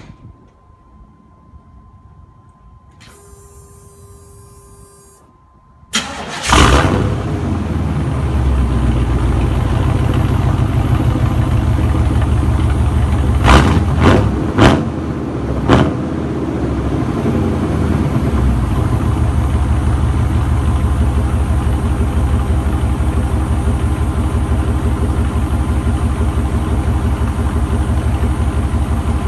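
A 1996 Chevy with a true dual straight-pipe exhaust, long-tube headers and catalytic converters being started: a click, several quiet seconds, then the engine cranks and catches about six seconds in with a loud flare. It settles into a steady, loud idle, with three quick throttle blips a few seconds later.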